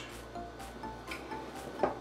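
Soft background music with a few light clinks of cutlery on a plate, the sharpest one near the end.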